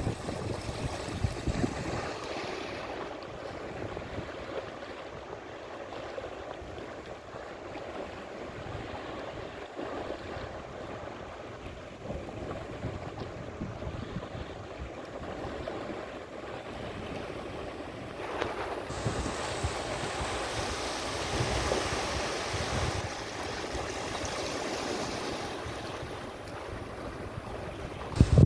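Small waves washing onto the shore of the Ob reservoir, a steady wash that grows brighter and a little louder about nineteen seconds in.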